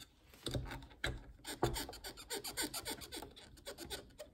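Handling noise of a rubber drive belt being worked onto the motor pulley of a vintage Kenmore sewing machine: irregular clicks and rubbing, loudest about a second and a half in.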